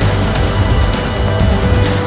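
Loud music with a heavy bass.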